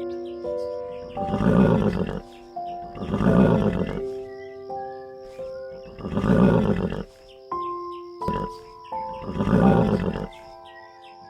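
An animal calling four times, each call rough and about a second long, over background music with slow held notes.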